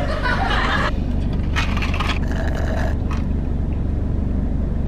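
Car engine idling, heard inside the cabin as a steady low hum. Over it in the first few seconds, two spells of sucking as iced coffee is sipped through a straw.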